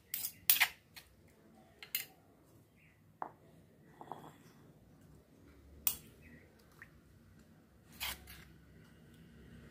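Steel spoon scraping and knocking against a stone mortar as ground tomato chutney is scooped out. The strokes are separate: a quick cluster at the start, the loudest about half a second in, then single scrapes every second or two.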